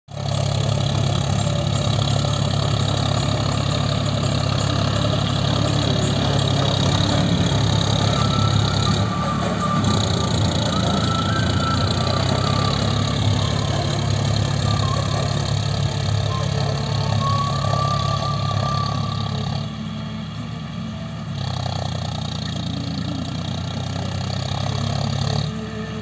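John Deere four-wheel-drive tractor's diesel engine running steadily under load while it pulls and drives a paddy straw baler through the field. The engine sound dips briefly a couple of times, most clearly about twenty seconds in.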